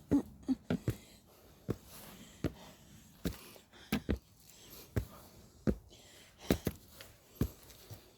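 Footsteps of a hiker climbing mountain trail steps, a sharp step about every second.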